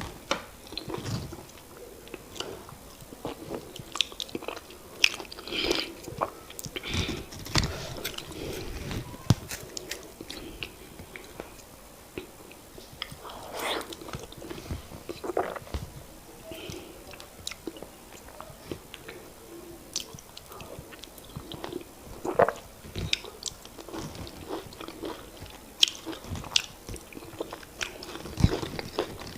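Close-miked eating of semolina fufu and oha soup: chewing and wet mouth smacks, with irregular short clicks.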